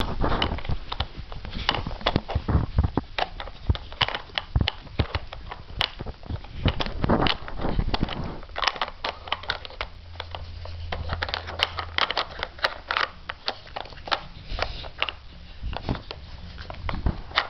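Plastic pieces of a Nina Ottosson Dog Brick puzzle clicking, knocking and scraping irregularly as a Pembroke Welsh corgi noses and paws at the sliders and bone-shaped blockers.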